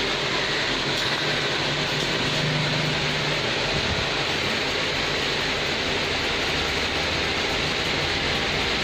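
Steady hiss of road traffic noise with no single vehicle standing out.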